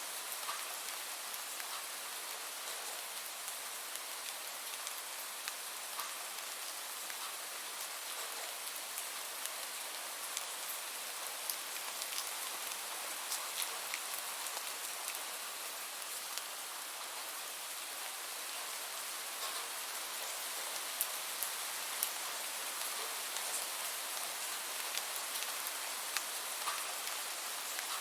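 Steady rain falling, an even hiss with scattered faint drop clicks.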